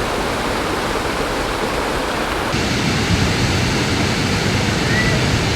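Waterfall rushing steadily. About halfway through the sound switches abruptly to a deeper, heavier rush.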